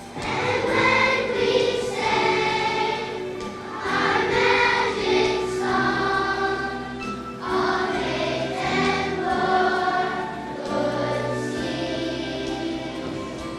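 Children's choir singing a song in unison phrases over instrumental accompaniment.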